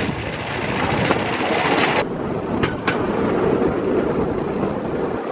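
Bamboo train (norry) running along the rails: a steady clattering rumble of its engine and wheels on the track, with two sharp clicks a little past halfway.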